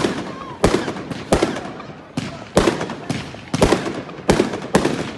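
Fireworks going off in a rapid, uneven run of about ten loud bangs, each trailing off briefly before the next.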